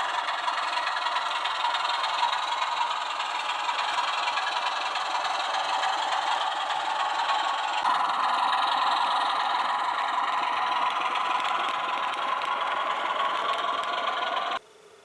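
00 gauge model train running on the layout track, a steady mechanical running noise. The sound changes character about eight seconds in and cuts off abruptly near the end.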